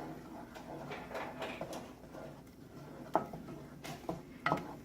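Utensil working spices into a tomato paste in a cooking pan: soft stirring, then several sharp clicks of the utensil against the pan in the second half.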